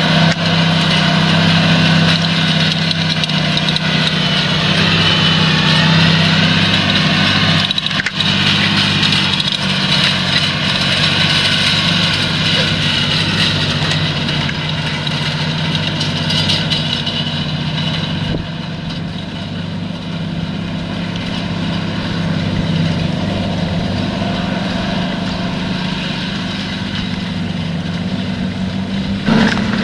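John Deere 8345R tractor's six-cylinder diesel running steadily under load while pulling a cultivator through stubble, a continuous drone with a dense upper rush. It grows somewhat fainter and duller for the last third.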